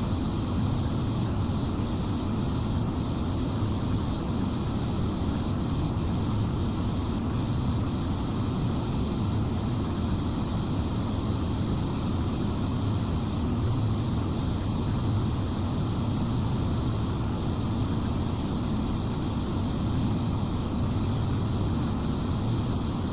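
Cooling fans of a broadcast transmitter's cabinets running: a steady, unchanging airy drone, heaviest in the low range.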